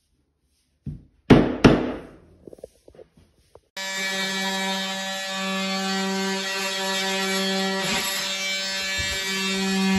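A white rubber mallet knocks a vinyl floor plank into place, two sharp strikes with a lighter tap before them. About four seconds in, a cordless oscillating multi-tool starts and buzzes steadily at a low pitch as it cuts at the foot of a wooden door frame, its buzz swelling slightly near the end.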